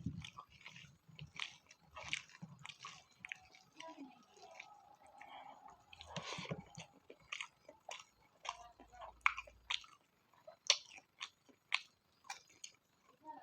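A person chewing and biting a mouthful of spicy pork fat close to the microphone: irregular wet smacks and soft crunches, several a second.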